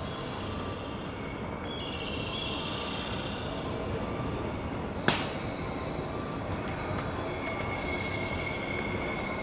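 A 115-series electric train pulling slowly into a station: a steady rumble with a high wheel squeal that comes and goes. A single sharp click about five seconds in.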